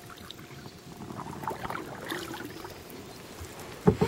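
Kayak on calm water: quiet paddle and hull sounds, with a sharp knock near the end.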